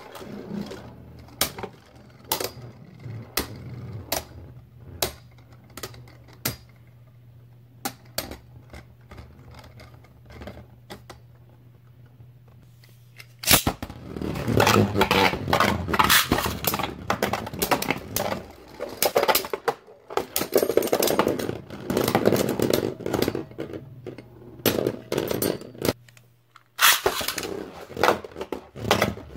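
Beyblade Burst spinning tops whirring and clicking against each other and the plastic stadium bowl. A sharp knock about halfway through starts a much louder, dense clattering that runs until shortly before the end, then breaks off briefly and resumes.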